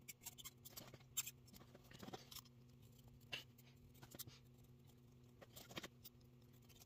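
Faint, irregular clicks and scratches of a razor blade cutting through a boot's sole stitching along the welt, breaking the thread loose so the worn sole can be pulled off. A low, steady hum lies underneath.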